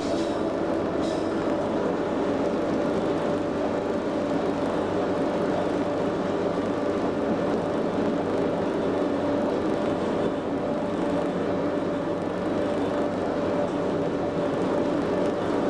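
Cab of Class 87 electric locomotive 87033 running along the line: a steady electric hum with a few held tones over the rumble of wheels on the rails. A couple of faint ticks come about a second in.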